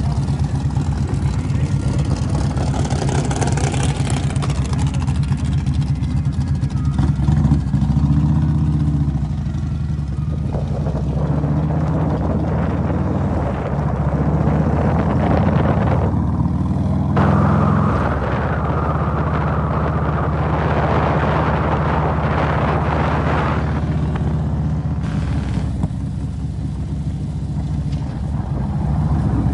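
A vehicle engine running steadily at low speed while moving, with brief rises in revs about eight and seventeen seconds in. Wind and road noise come and go over it.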